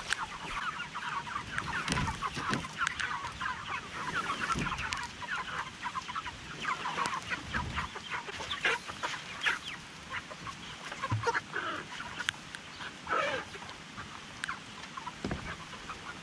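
A flock of meat chickens chattering: a dense, continuous run of short peeps and clucks.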